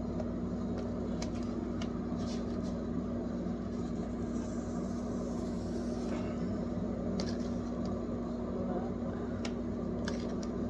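A steady, even hum with one constant low tone, like a running appliance or fan, with a few faint scuffs of a cloth wiping a refrigerator's rubber door seal.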